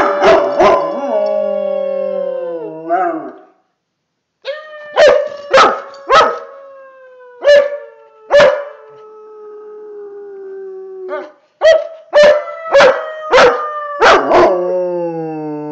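Bernese mountain dog howling: three long howls that slowly fall in pitch, broken again and again by short, sharp barks.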